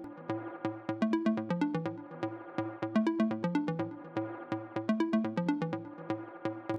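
Electronic background music: a repeating pattern of short plucked synth notes over a steady bass line.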